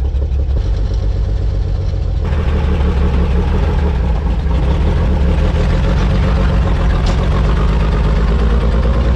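Old World War II Chevrolet truck engine running steadily as the truck is driven off, a low, even drone that rises slightly near the end.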